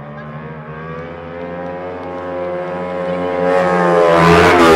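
Motorcycle engine held at high revs during a burnout, with the rear tyre spinning and smoking. It holds a steady pitch and grows steadily louder as the bike comes closer, and a hiss builds over it near the end.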